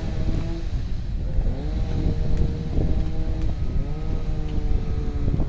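Vehicle running, with a heavy low rumble of road and wind noise on the microphone. A pitched hum rises and then levels off twice, as the engine speeds up.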